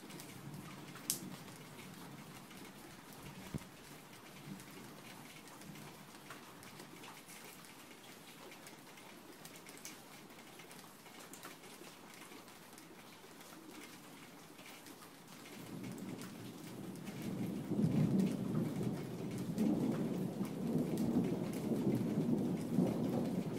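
Steady rain with scattered drop clicks; about two-thirds of the way through, a louder low rumble of thunder swells in.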